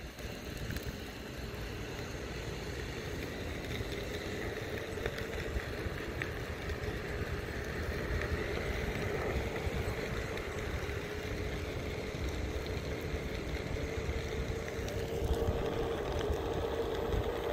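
Onewheel XR electric hub motor and its tyre rolling over asphalt while the board is ridden: a steady hum with a fainter, higher whine that drifts a little in pitch.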